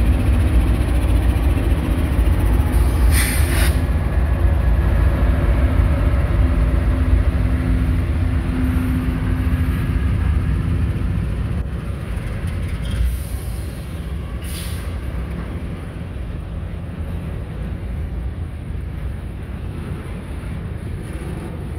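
A Norfolk Southern diesel locomotive passes close by, its engine drone dying away over the first ten seconds or so. Then comes the steady noise of double-stack intermodal cars rolling over the rails, with two brief high-pitched noises at about three and fourteen seconds.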